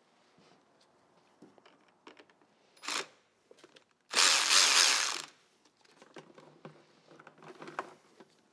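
Electric ratchet spinning the nut off a car battery's terminal clamp to disconnect it: a brief blip about three seconds in, then a run of just over a second. Faint clicks and rattles follow.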